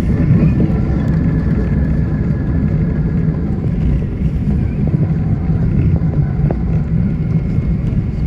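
Steady, loud low rumble of a Boeing 777-300ER's engines and airflow heard inside the passenger cabin, with a few faint steady tones above it.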